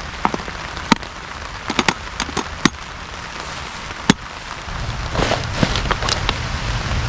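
Rain pattering steadily on a silnylon tarp, with a handful of sharp single taps in the first four seconds. From about five seconds in, a louder rustling joins it.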